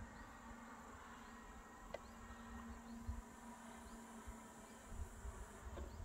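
Faint, steady insect buzzing that swells a little midway, with soft chirps repeating in the background.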